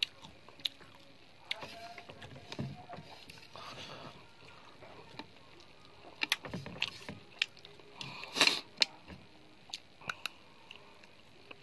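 Someone eating rice and fried chicken by hand from a plate: scattered small clicks and scrapes of fingers and food against the plate, and chewing, with one louder short scrape or rustle about eight seconds in.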